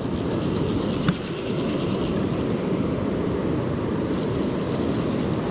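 Fly reel drag clicking rapidly for about two seconds as a hooked rainbow trout pulls line off, over the steady rush of river water.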